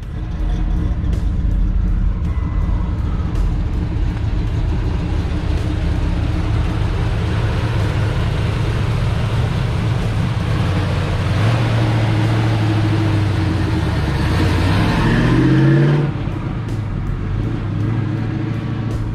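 1969 Chevrolet Nova SS's 350 V8 running, then revving up with a rising pitch as the car accelerates away, about three-quarters of the way through. The level drops suddenly just after.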